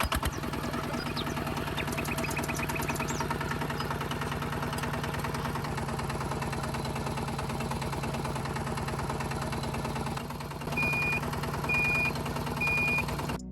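Tractor engine idling steadily with an even, rapid firing beat. Near the end, three short high beeps sound under a second apart.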